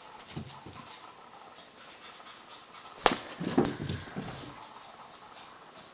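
A Papillon puppy scampering on carpet: light patter and scrabbling of small paws, with a sharp knock about three seconds in followed by a flurry of quick thuds and clicks as she dashes off.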